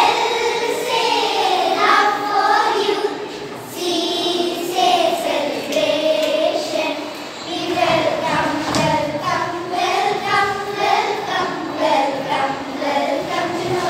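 A group of young girls singing a song together in unison, with no clear instrumental backing.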